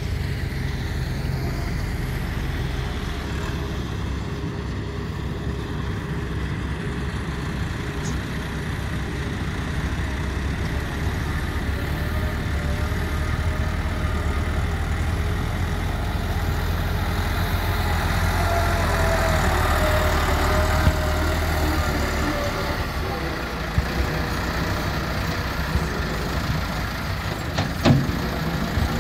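Diesel engine of a tractor front-end loader running steadily, working harder with a whine about two-thirds of the way through as the loaded bucket is worked. A few sharp knocks near the end as the bucket tips sand and stones into the truck's body.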